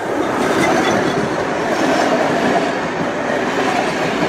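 Passenger train passing close by at speed: a steady, loud rumble and rattle of its carriages and wheels running on the rails.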